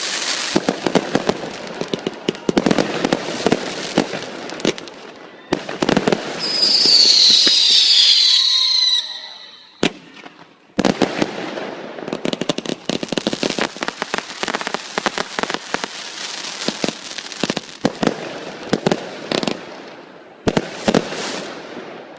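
Fireworks going off: rapid, dense crackling and popping bursts, with a shrill falling whistle about six to nine seconds in. A short lull comes near ten seconds before the crackling resumes.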